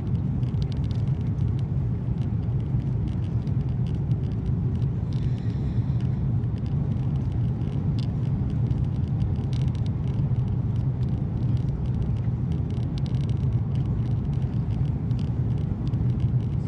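Steady low rumble inside the cabin of an Airbus A330-223 with Pratt & Whitney PW4000 engines, heard from a window seat, with faint light rattles over it.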